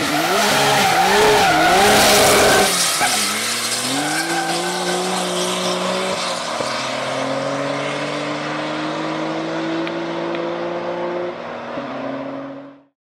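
Turbocharged LS2 V8 in a 1997 Holden VS Commodore ute under hard throttle: the revs rise and fall in quick waves with tyre squeal, then the engine pulls through two gear changes and holds a steady note before the sound cuts off near the end.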